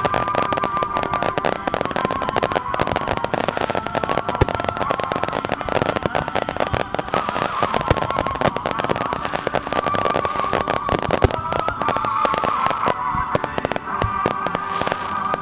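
Starmine fireworks barrage: a dense, continuous rattle of rapid bangs and crackles from many shells bursting close together, thinning slightly near the end.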